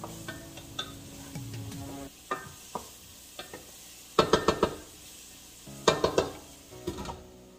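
Wooden spatula stirring onions frying in a pot, then knocked against the pot's rim in a quick run of sharp taps about four seconds in, followed by another cluster of clatters as the glass lid is handled over the pot about six seconds in. Faint background music underneath.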